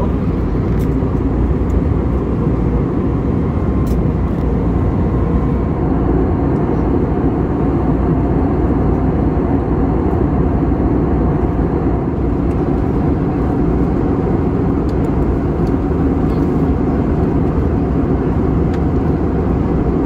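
Steady low rumble of an Airbus A321neo airliner's cabin in cruise: engine and airflow noise heard from a passenger seat.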